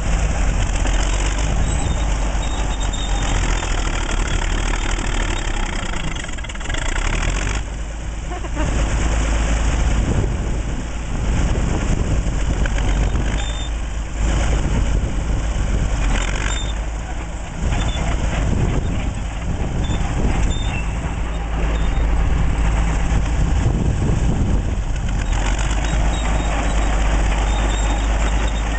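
Diesel engine of a 1940s Caterpillar D8 bulldozer running, its level dipping and picking back up several times.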